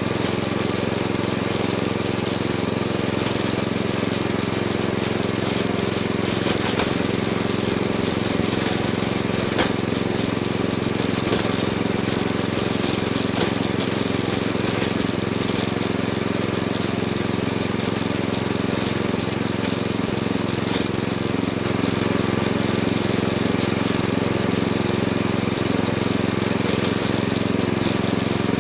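Riding lawn mower engine running steadily as the mower drives along, heard close up from its hood, with a few sharp clicks scattered through. It gets slightly louder about three quarters of the way through.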